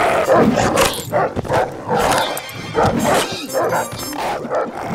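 Dogs barking over and over in a cartoon soundtrack, short loud barks following one another quickly.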